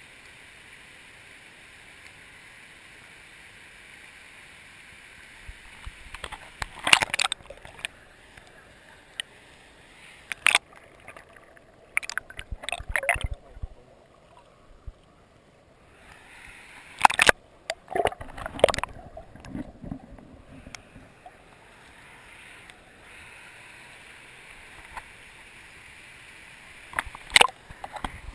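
Running stream water heard through a camera sealed in a plastic bag as it is dunked and handled in the water: a steady rush of water, muffled and dull for a few seconds midway while the bag is under the surface. Sharp crackles and knocks of the plastic bag rubbing against the microphone break in several times.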